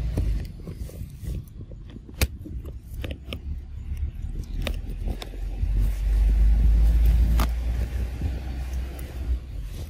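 Low, uneven rumbling noise that swells and fades, loudest about six to eight seconds in, with several sharp clicks, the clearest about two and seven seconds in.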